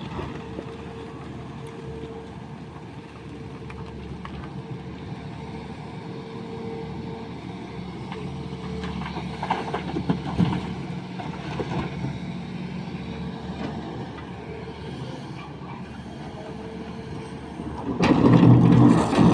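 Sany excavator's diesel engine running steadily, with some clatter a little past the middle. Near the end the engine suddenly grows much louder as it takes up hydraulic load.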